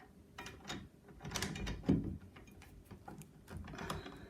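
A metal lever door handle and its spindle clicking and knocking as they are fitted together against a door, with a firmer knock about two seconds in.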